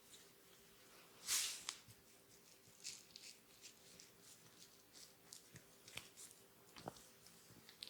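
Faint close-up rustles, soft crackles and small clicks of a head massage, with one louder rustle about a second in.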